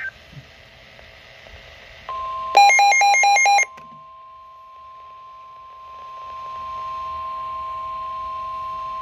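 Weather radio emergency alert tones. A steady high warning tone starts about two seconds in and grows louder after about six seconds. Shortly after it starts, a loud second-long burst of rapid, alternating electronic beeps plays over it.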